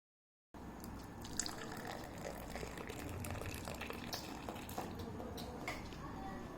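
Faint sound of liquid being poured, with a few light clicks, starting about half a second in.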